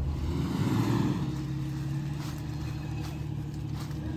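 Jeep engine running steadily, briefly louder about a second in, then settling back to an even run.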